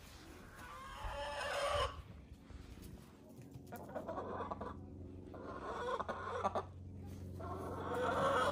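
Domestic hens clucking in three bouts, each growing louder before it breaks off: about a second in, through the middle, and again at the end.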